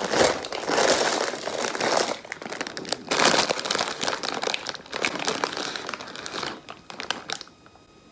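Plastic cracker packet crinkling as it is handled, in a run of rustling bursts that stop near the end.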